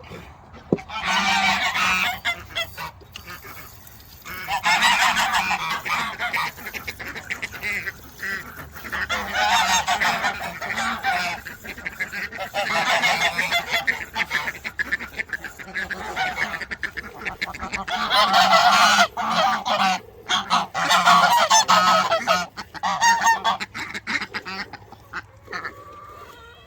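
Farm fowl honking loudly in repeated bouts a few seconds long, with short lulls between.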